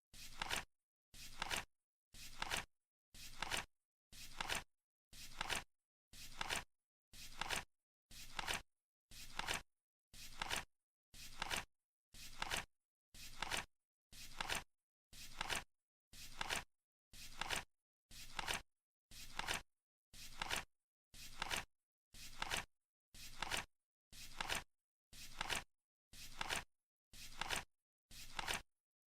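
Flip-clock countdown sound effect: a short dry flap or click once a second, as the card for each second flips over, keeping an even beat.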